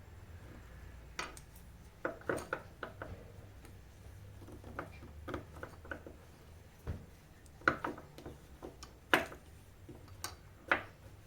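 Irregular small clicks and taps of lithium-ion battery cells being handled and put together on a workbench, with a few sharper knocks near the end.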